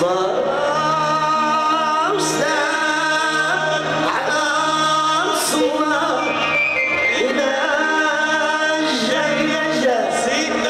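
Male singer performing a Moroccan chaabi song live, with held, bending vocal lines over an orchestra of violins.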